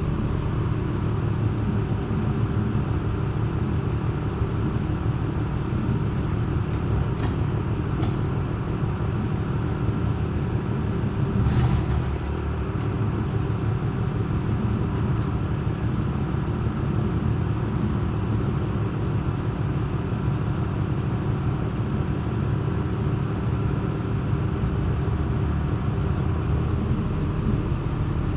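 A machine running with a steady low rumble and hum. Two light clicks come about seven and eight seconds in, and a short, louder noise about twelve seconds in.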